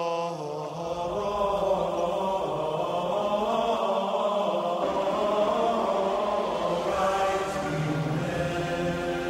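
Music with sustained, chant-like voices over a held low note; it grows fuller about seven seconds in.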